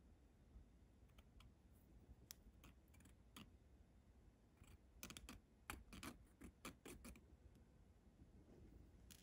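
Faint ticks and scrapes of a small razor saw blade in a hobby knife handle working on a thin metal rod. A few single ticks come first, then a quick run of about a dozen ticks about five seconds in.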